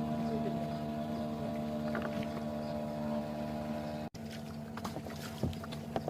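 Small boat's engine running at a steady speed, a steady hum. It drops out abruptly for an instant about four seconds in, then carries on with a few knocks.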